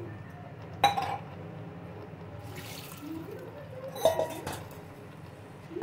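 A steel spoon clinks sharply against a large aluminium cooking pot twice, about a second in and again about four seconds in, as rice is worked into the pulao mix. A low steady hum runs underneath.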